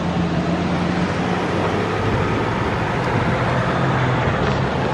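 Cars driving one after another across a railroad grade crossing: steady tyre noise with a low engine hum that shifts in pitch as each vehicle passes.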